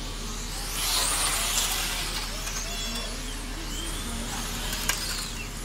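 1/10-scale electric RC pan cars racing on an asphalt track, their motors giving high whines that rise and fall in pitch as the cars pass.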